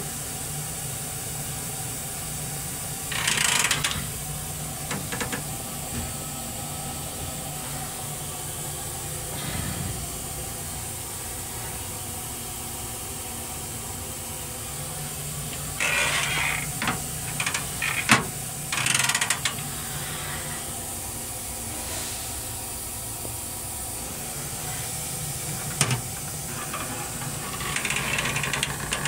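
Steady hum and hiss inside a Metro-North M3 railcar restroom, broken four times by short hissing bursts and once by a sharp click about eighteen seconds in, as the stainless-steel toilet and its seat are handled.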